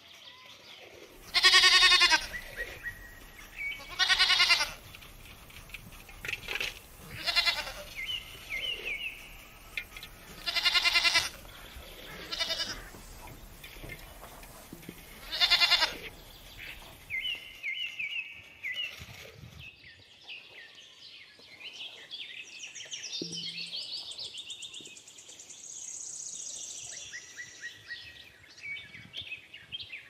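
Goats bleating: four loud, long, wavering bleats and a few shorter ones in the first half. After that, high chirping and twittering.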